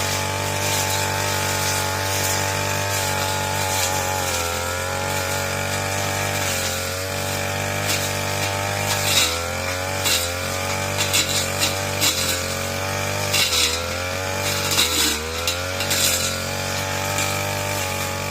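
RedFox two-stroke brush cutter engine running at high revs. Its pitch dips and recovers several times as it takes load, with short bursts of cutting noise in the second half.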